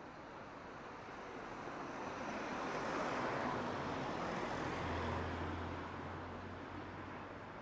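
A motor vehicle driving past: tyre and engine noise swells to a peak in the middle, with a low engine hum as it goes by, then fades away.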